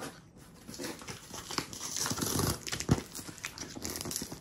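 A shipping package being opened by hand: irregular crinkling and tearing of packaging, busiest in the middle, with a sharp knock about three seconds in.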